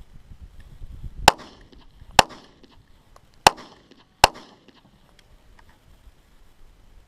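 Four shots from a Smith & Wesson Shield 9mm compact pistol, fired over about three seconds at uneven spacing, each with a short echoing tail.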